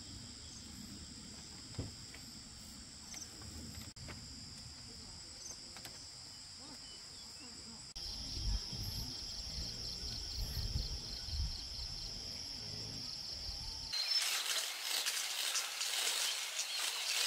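Steady high-pitched chirring of insects with an irregular low rumble underneath. About three seconds before the end, the sound changes abruptly to a louder, even hiss.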